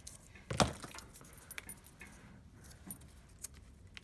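Light metallic jingling and a few small clicks as cut card and paper pieces are handled on a worktable, the chain-link bracelet on the wrist clinking; the loudest knock comes about half a second in.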